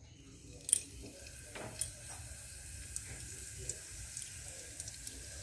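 Breaded banana-flower cutlets sizzling in hot oil as they are laid in to fry: a sharp crackle a little under a second in as the first goes into the oil, a few more pops soon after, then a steady hiss with scattered small crackles.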